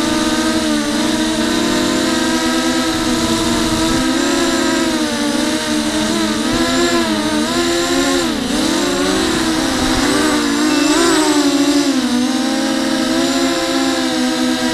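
FPV quadcopter's brushless motors and propellers whining in flight, a steady whine whose pitch dips and swells with throttle changes, most sharply just past the middle and again a couple of seconds later.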